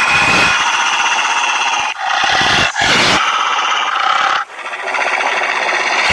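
Wolves vocalizing loudly in a continuous run of calls, broken by a few short gaps.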